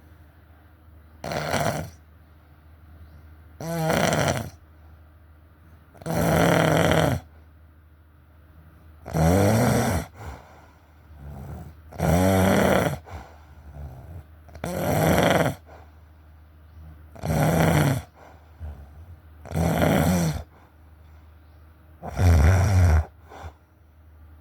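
Snoring: a run of about nine snores, one roughly every two and a half seconds, each lasting about a second, with much quieter gaps between.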